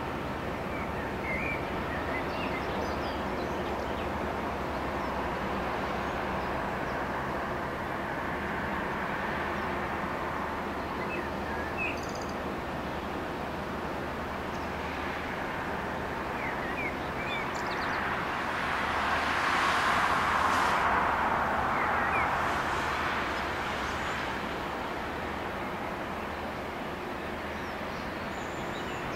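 Steady low drone of a passing Rhine tank barge's diesel engine, with a few short bird chirps over it. About two-thirds of the way in, a broad rushing noise swells up and fades away over several seconds.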